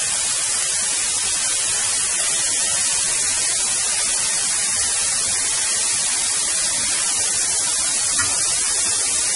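Onions, sweet peppers, celery and green onions sizzling in oil in a wide metal cooking disc over a wood fire: a steady, even hiss of frying.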